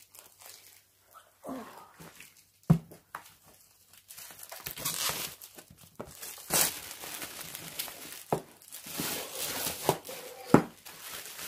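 Packaging wrapping crinkling and tearing as a long cardboard kit box is unwrapped and handled, with a sharp knock a little under three seconds in and a louder one near the end.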